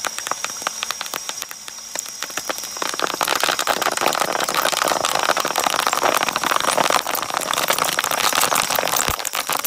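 Bubble wrap popping in a rapid, dense crackle as a shredder's cutting blades chew through it. The popping gets louder about three seconds in.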